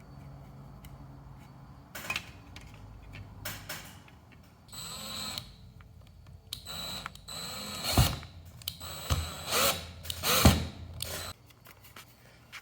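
A power drill driving two screws into wall anchors to fix a smoke detector's mounting plate. The motor runs in several spurts with a high whine, and there are two sharp knocks in the second half.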